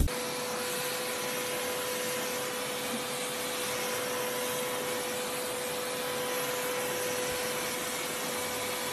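Vacuum cleaner running steadily: an even rush of air with a steady whine over it.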